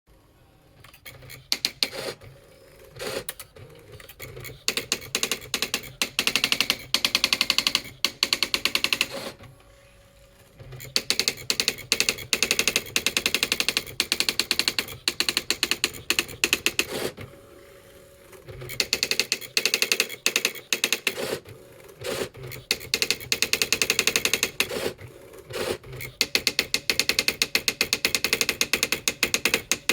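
Royal TQ620 typewriter being typed on: long runs of rapid key strikes, several a second, broken by short pauses, the longest about 10 seconds in and again about 18 seconds in.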